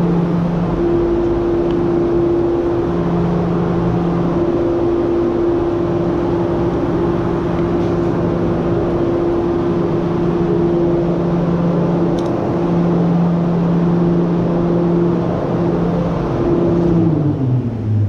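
A large motor-driven machine runs steadily with a loud rushing noise and a constant two-note hum. Near the end its pitch falls as it winds down.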